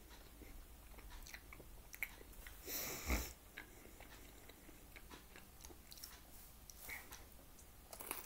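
A person chewing and biting a slice of homemade ham-and-cheese pizza, with faint scattered mouth clicks and smacks and one louder burst of noise about three seconds in.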